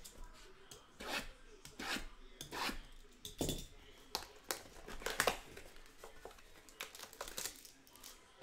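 Trading-card boxes and packs being opened by hand: a string of short, irregular scrapes, rubs and rips of cardboard and wrapper.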